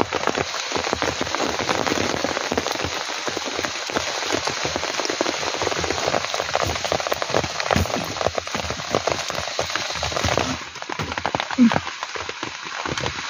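Heavy rain falling steadily on a tent, a dense hiss full of individual drop ticks; the hiss thins and drops in level about ten and a half seconds in.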